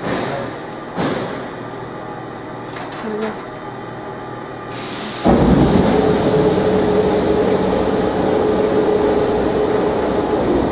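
A few light knocks, then about five seconds in a loud, steady machine hum with rushing air comes on suddenly and keeps running, with a steady low tone.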